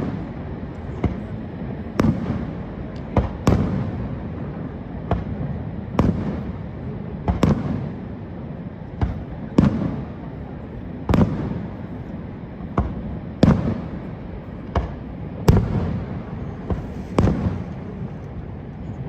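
Fireworks show: aerial shells bursting with a sharp bang about every second, some fifteen in all, over a steady rushing background noise.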